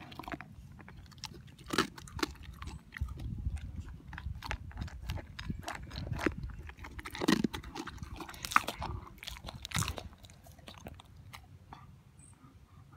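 Wolfdog eating dry kibble from a metal bowl: irregular sharp crunches as it chews mouthfuls, dying away near the end.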